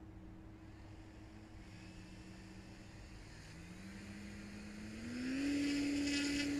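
Motor and propeller of a radio-controlled ASW 28 model glider spooling up just before a hand launch: a whine that rises in pitch from about three and a half seconds in, then holds steady and loud near the end.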